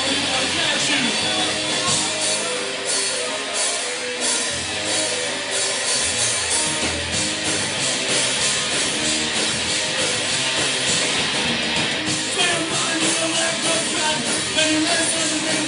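Punk rock band playing live: loud, guitar-driven rock with a steady beat and no break.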